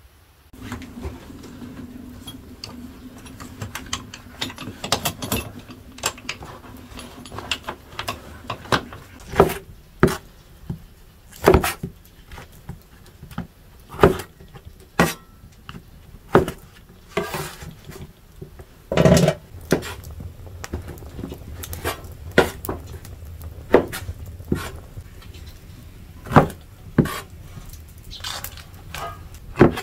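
Heavy cleaver chopping dried dates on a round wooden cutting board: irregular sharp knocks of the blade striking the board, roughly one a second, starting a few seconds in.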